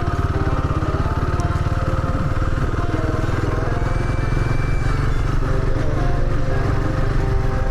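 Royal Enfield Himalayan 450's single-cylinder engine running steadily at low revs while the motorcycle is ridden slowly over a rocky dirt road.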